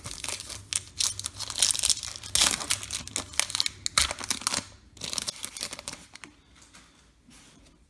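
Card pack wrapper being torn open and crinkled, a dense crackling for about five seconds that then thins out to a few light clicks.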